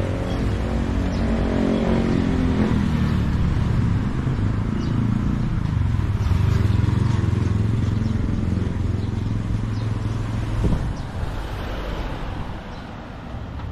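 Street traffic passing close by: a city bus's engine note falls in pitch as it goes past over the first couple of seconds, then another vehicle's engine runs as a steady low rumble while it approaches and passes. A single short knock comes about ten seconds in.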